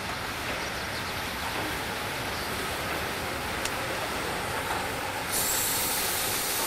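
DR class 52 steam locomotive 52 8080-5 rolling slowly past with its passenger train, a steady rumble of wheels and running gear on the rails. About five seconds in, a loud steam hiss starts up and carries on.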